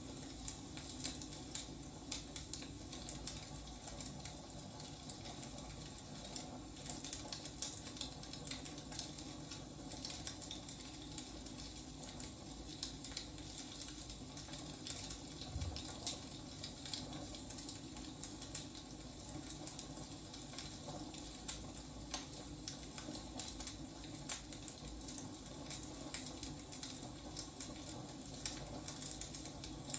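Wood fire crackling: a steady low rustle of burning with many small, irregular pops and snaps.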